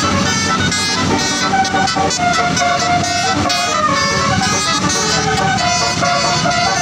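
Tour bus telolet horn playing a tune, several horn tones sounding together and stepping from note to note.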